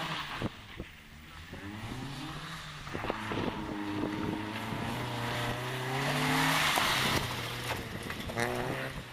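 A rally car's engine revving hard as it accelerates along a gravel stage and passes close by, its pitch climbing and dropping back several times with the gear changes. Gravel and tyre noise is loudest about six to seven seconds in as it goes past.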